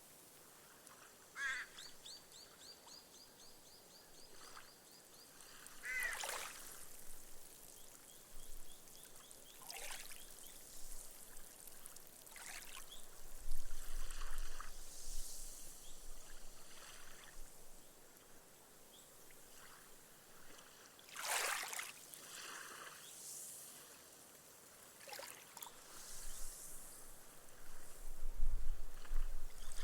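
Small, gentle waves washing up a sandy beach and seeping into the sand, each wash ending in a fizzing hiss of foam, with the two biggest surges about halfway through and near the end. A few short bird calls in the first several seconds.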